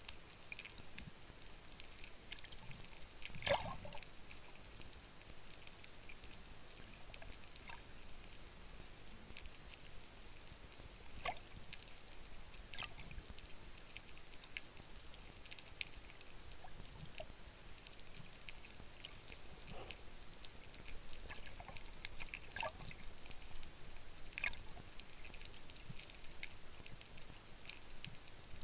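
Underwater ambience recorded below the sea surface: a steady low hiss with scattered faint clicks and pops, a few of them louder.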